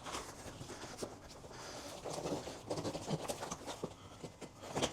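Hands working a bicycle tire and tube onto the rim: a run of short, faint scuffing and rubbing sounds.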